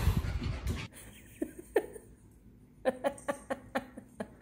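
A person's soft rhythmic giggling in short pulses, about four or five a second, in the second half. Before it come two short squeaks, and a louder burst of sound fills the first second.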